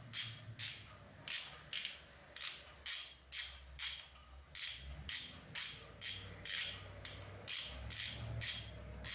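Ratchet wrench clicking in quick, even strokes, about two clicks a second, as a hex socket backs out the motorcycle's main oil drain bolt.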